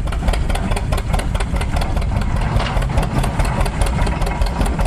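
Antique farm tractor engine running steadily with a rapid, even beat, driving a belt-powered stationary hay baler.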